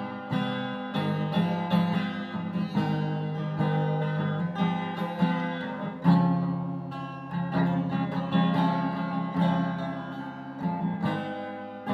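Acoustic guitar playing an instrumental intro, plucked notes and strummed chords at a steady pace.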